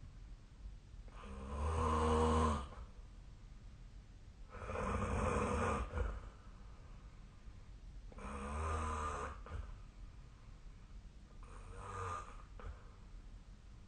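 Snoring in sleep: four long, buzzing snores about three and a half seconds apart, each growing fainter towards the end.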